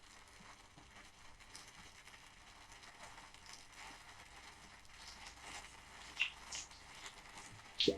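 Faint rustling and crackling made of many small ticks, with a few sharper clicks in the last two seconds.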